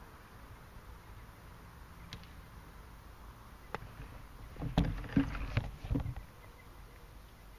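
A golf club striking a teed ball on a tee shot about four seconds in, followed by about a second and a half of low rumbling buffeting on the microphone.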